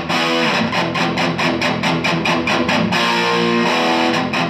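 Electric guitar played through the Dynamo Flight Rig tube preamp's clean channel with a little gain. It plays fast strummed rhythm chords at about five strokes a second, with a few held notes about three seconds in.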